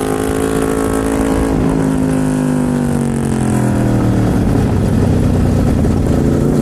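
Aprilia RSV4's V4 engine running under way: its note holds, then falls slowly over a couple of seconds as the revs come down, and settles into a lower, rougher note.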